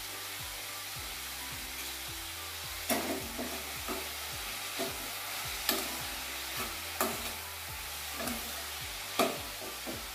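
Shredded cabbage and capsicum sizzling steadily in a kadai. From about three seconds in, a steel spoon stirs and tosses them, knocking and scraping against the pan roughly once a second.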